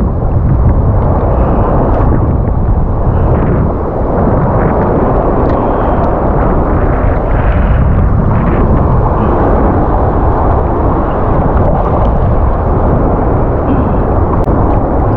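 Steady heavy rumble of wind buffeting a chest-mounted action camera's microphone, mixed with choppy surf washing around a wading angler.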